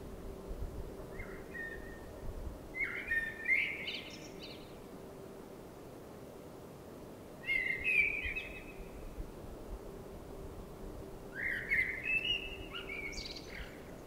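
Male Eurasian blackbird singing: three short warbled phrases, a few seconds apart.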